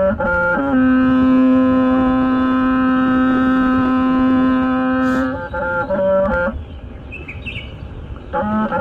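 Hmong raj (bamboo pipe) playing a slow melody: a few short notes, then one long held low note for about four and a half seconds, a run of shorter notes, and a pause of nearly two seconds before the tune starts again near the end.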